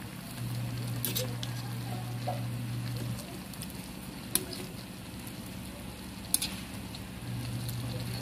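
Chicken pieces sizzling and simmering in a large aluminium pan as they are stirred with a metal ladle, with a few sharp clicks of the ladle against the pan. A steady low hum comes in about half a second in, stops around three seconds, and returns near the end.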